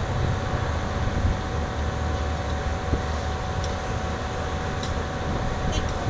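A tracked soil-nail drill rig running steadily: a low engine drone with a thin steady whine above it, and a few faint high ticks in the second half.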